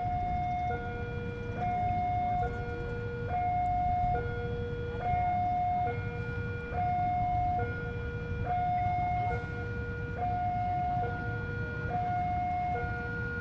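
Railway level-crossing alarm sounding an electronic two-tone hi-lo warning, alternating evenly between a higher and a lower tone about once a second each, over a steady low rumble.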